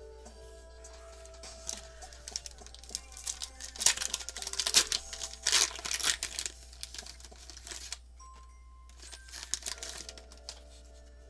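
Foil wrapper of a Pokémon booster pack crinkling and tearing as it is opened, loudest in a run of rustles in the middle and again briefly near the end, over background music with steady held notes.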